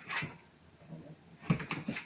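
Dog sounds: two short breathy bursts, one at the very start and another about a second and a half in that opens with a sharp click.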